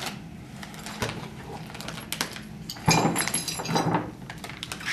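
Loose metal mount hardware (bolts and nuts) clinking and rattling as it is handled, with scattered clicks and a louder flurry of clatter about three seconds in.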